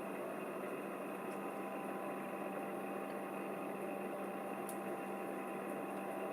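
Desktop PC's cooling fans running, a steady whirring hum with a low tone.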